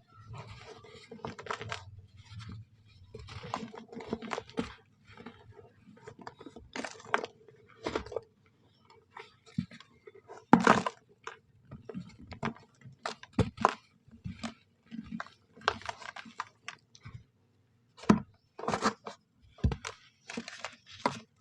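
Soft brown sand being crushed and crumbled, giving irregular crunching bursts of varying loudness, over a faint steady low hum.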